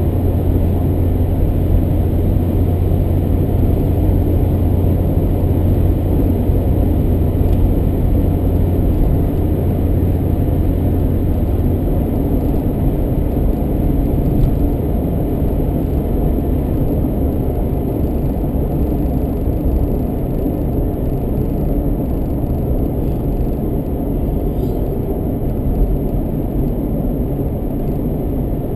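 A car's engine and tyres on the road, heard from inside the cabin as a steady low rumble with an engine drone. The drone eases off about twelve seconds in.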